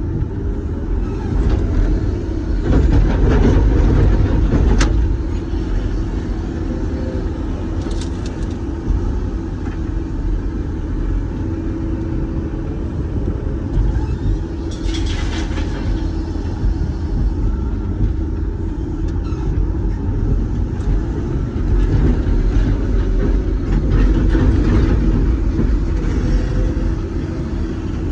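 Doosan DX420LCA excavator's diesel engine running steadily as heard from inside the cab, rising in level twice as it works under hydraulic load. A few short clatters and a longer rushing burst about halfway through, typical of the bucket digging and dumping gravel.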